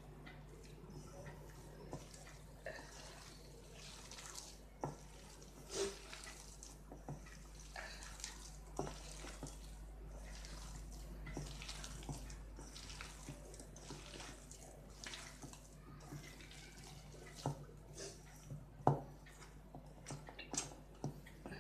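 A hand squeezing and mixing thick ground urad dal batter with chopped spinach and onion in a steel bowl: soft, irregular squelching with scattered light ticks of fingers against the bowl, over a faint steady hum.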